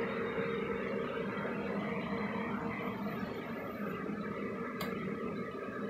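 Acer AT350F2 server's cooling fans running with a steady whir and hum during a reboot. There is a faint click about five seconds in.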